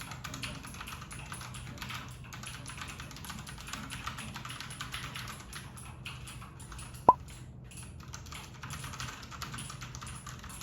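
Fast, continuous typing on a compact 60% mechanical keyboard with Cherry MX Red linear switches, a soft steady clatter of keystrokes. A single louder, sharp click stands out about seven seconds in.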